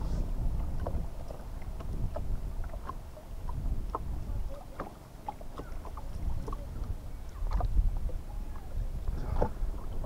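Wind rumbling on the microphone, with scattered light taps and clicks as a fishing rod and a small fish are handled in a wooden canoe.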